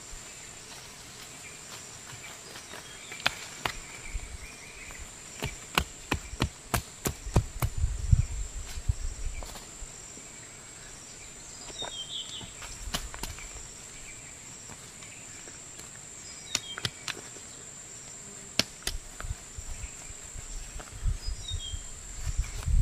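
Short-handled hoe striking and scraping into soil in irregular knocks, thickest a few seconds in and again near the end, over a steady high-pitched insect drone.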